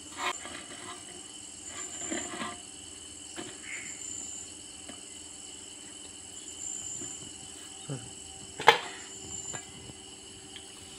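Pieces of hard, dried smoked beef handled on a woven cane tray and dropped into a steel bowl: scattered light knocks and rustles, with one sharper knock about three-quarters of the way through. A steady high-pitched drone runs underneath.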